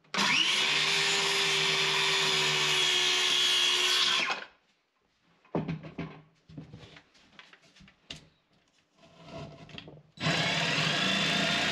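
DeWalt cordless circular saw spinning up and cutting along a wooden board for about four seconds, then stopping. It is followed by a few seconds of clunks and knocks as the tools are handled. Near the end a DeWalt cordless jigsaw starts up and cuts the board.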